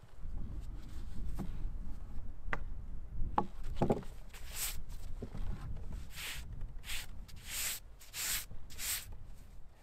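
Gloved hands brushing over the sawn face of freshly chainsaw-milled oak boards: about six short rubbing strokes in the second half, after a few wooden knocks as the boards are shifted, over a low rumble.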